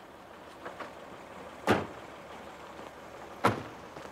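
Two car doors slammed shut, the second about two seconds after the first, with faint footsteps on pavement between.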